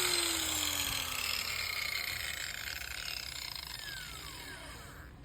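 Makita 9553B 4-inch angle grinder spinning down after being switched off: its whine falls steadily in pitch and fades away.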